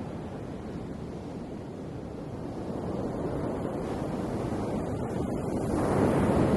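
Ocean waves washing in, a steady rush of surf that swells to a louder breaking wave near the end.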